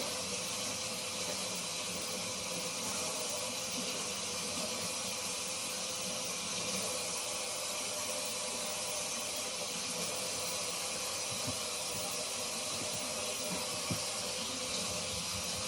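Water running steadily from a tap as a soapy makeup sponge is rinsed and squeezed under it.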